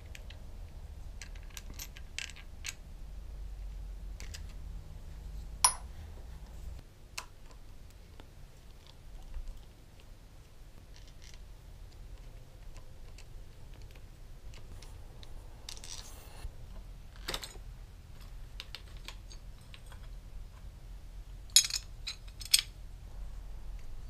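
Hand tools and plastic motorcycle switch housings and levers being handled and unbolted: scattered small clicks and taps, the sharpest about five and a half seconds in and a close pair near the end, over a faint low hum.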